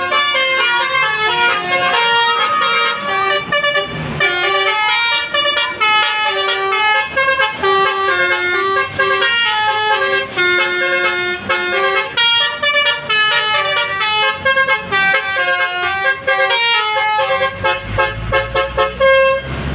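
Bus basuri horn, the Indonesian 'telolet' multi-tone musical horn, playing a long, fast melody of stepping notes. A low rumble comes in near the end.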